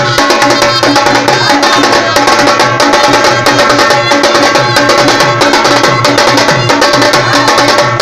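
Khalu baja folk band playing: several stick-beaten drums, including a two-headed barrel drum, keep a fast, dense beat under a wind instrument's held melody.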